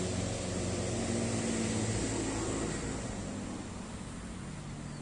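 Distant engine with a low steady hum under outdoor noise, slowly fading.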